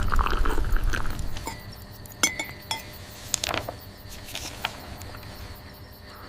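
Teacups and china clinking several times, light sharp chinks each with a short ring, after a brief muffled rustle at the start.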